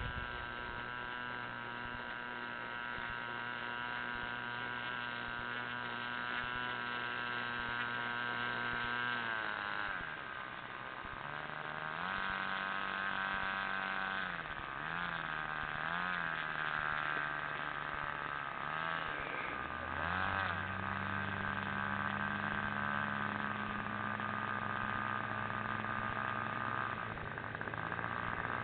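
Small motor running with a steady hum. Its pitch drops about nine seconds in, then steps up and down several times before settling higher.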